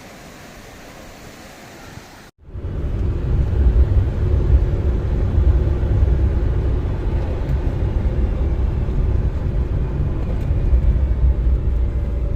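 Rushing water of a waterfall, a steady hiss; after a cut a little over two seconds in, a much louder, deep rumble of falling water close by.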